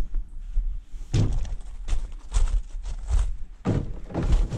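Footsteps crunching on gravel and rock, about six steps at a walking pace starting about a second in, with thumps from a carried paddleboard and a low rumble of handling noise.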